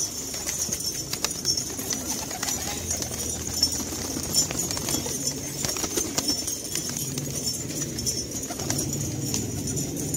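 A loft full of domestic pigeons cooing in a continuous low murmur, with scattered sharp clicks and taps, over a steady high hiss.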